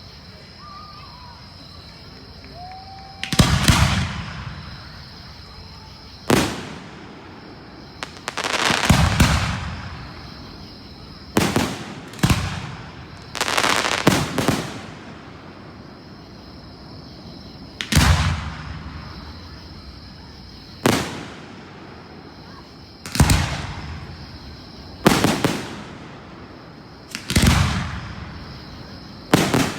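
Aerial fireworks shells bursting, about a dozen booms spaced a few seconds apart, each a sharp bang fading out over a second or so, a few with longer drawn-out tails.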